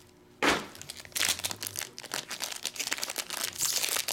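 Foil trading-card pack crinkling as it is handled and pulled open by hand, with one sharp crackle about half a second in followed by dense, rapid crinkling.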